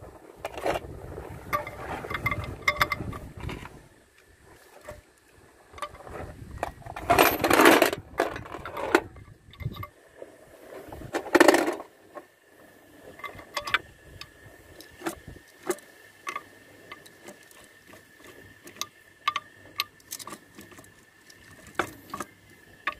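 Light metallic clinks and taps of steel planetary gears being slid onto their shafts and seated by hand in an excavator's final-drive hub, with two louder bursts of noise in the first half and the clinks coming thick and fast in the second half.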